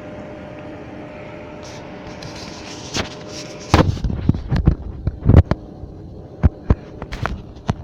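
Steady low hum, then from about four seconds in a run of irregular knocks, bumps and rubbing as fingers handle the phone and cover its lens and microphone.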